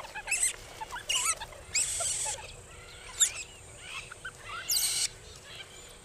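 Banded mongooses making a series of short, high chirping calls, several with quick rising or falling pitch glides, mixed with a few scratchier, noisier squeaks. These are the contact twitters a foraging group keeps up.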